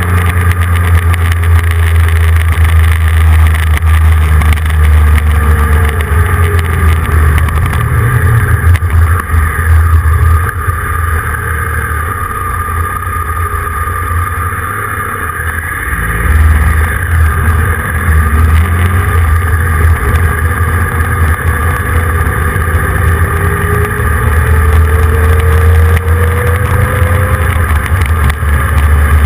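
Motorcycle engine running under strong wind rumble on the mounted camera. It quietens about ten seconds in as the bike slows, picks up again about sixteen seconds in, and rises in pitch as it accelerates near the end.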